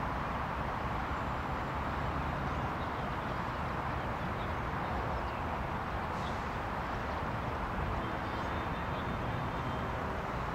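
Steady outdoor ambience: a constant hiss of distant road traffic, with faint high chirps now and then.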